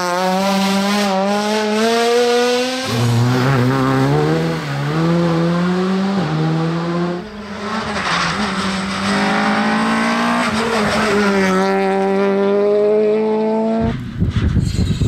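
Rally car engines at full throttle, revving up through the gears: the pitch climbs and drops back at each upshift, in several short passes. About 14 s in it changes abruptly to a rougher, noisier sound as a car throws up gravel.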